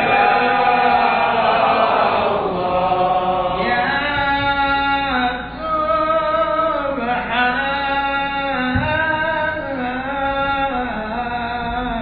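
Sufi dhikr chanting: a man's voice through a microphone sings long, held notes that glide gently up and down, with a brief breath pause about five and a half seconds in.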